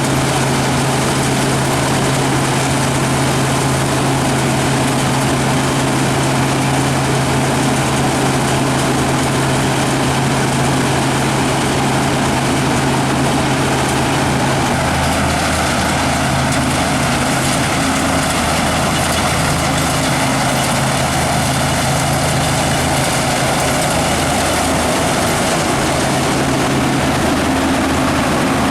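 New Holland combine harvester running steadily while harvesting wheat, a loud engine hum over the threshing machinery; the engine note shifts lower about halfway through.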